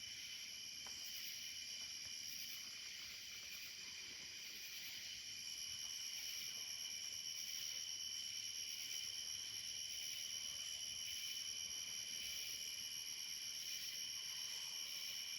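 Night chorus of crickets and other insects: several steady high-pitched trills overlapping, with a faster pulsing chirp on top.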